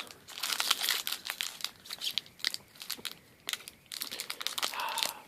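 Booster pack wrapper crinkling and tearing as it is pulled open by hand, an irregular run of crackles.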